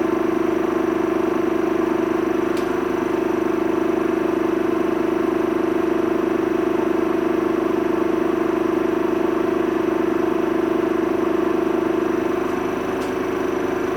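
Samsung washing machine running, its motor giving a loud, steady whine over a rushing noise. About twelve seconds in, the sound eases a little and the tone shifts.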